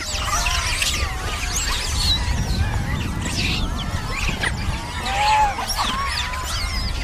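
A crowd of rhesus macaques calling: many short, overlapping high squeals that rise and fall in pitch, made by a troop gathering for food. A steady low rumble runs underneath.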